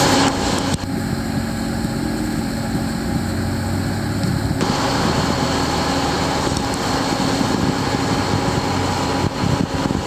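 Engine of heavy pile-driving equipment running steadily: an even, low machine drone with no hammer blows.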